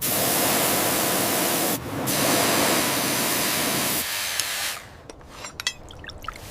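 Spray hissing in two long bursts, the first about two seconds and the second about three, with a short break between them. Then a few small clicks and taps.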